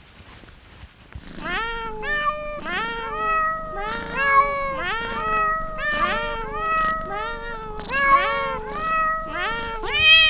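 Domestic cat meows in a rapid, unbroken run, each meow rising then falling in pitch, several overlapping at different pitches. They start about a second and a half in, with a louder, higher meow near the end.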